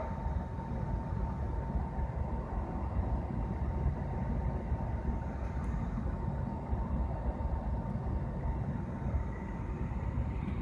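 Airliner cabin noise: a steady low rumble, with a faint steady tone above it.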